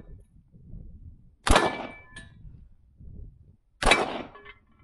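Two gunshots a little over two seconds apart, each followed by a brief metallic ring, the sound of a steel target being hit.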